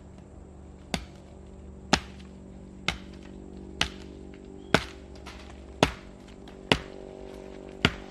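Chopping into wood with a blade: eight sharp strokes about a second apart, evenly paced.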